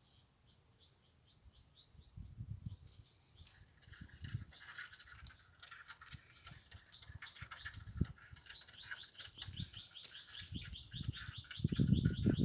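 Small birds chirping in quick repeated trains of short high notes, about four a second, over other twittering. Low rumbling thuds come and go beneath, loudest near the end.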